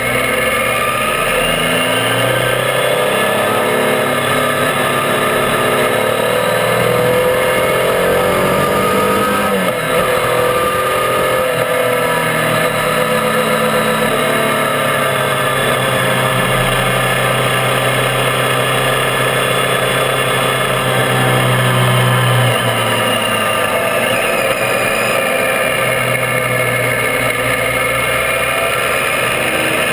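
Triumph Tiger 800's three-cylinder engine running under way, its pitch rising and falling several times with the throttle, over steady wind and tyre noise.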